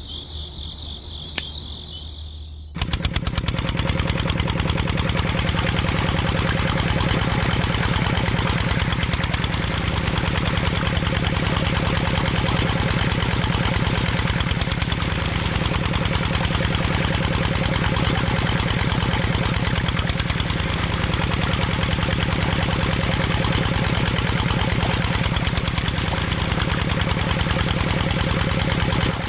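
A small switch clicks, then about three seconds in a motor starts and runs steadily with a fast, even chugging pulse, driving a miniature belt-driven water pump.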